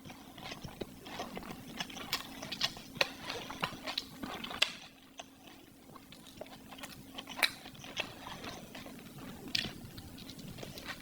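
Close-miked mukbang eating sounds: a person chewing and biting food, with irregular wet mouth clicks and smacks.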